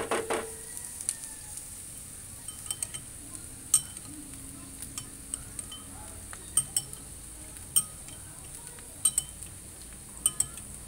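Diced onions sautéing in oil in a nonstick frying pan, a steady sizzle. A spatula knocks against the pan right at the start, then taps and clinks on it at irregular moments as the onions are stirred.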